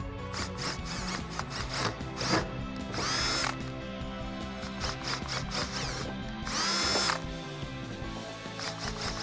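Cordless drill boring holes through a metal car trunk lid, the motor running in trigger pulls. It spins up twice to a louder, rising whine, about three seconds in and again about seven seconds in.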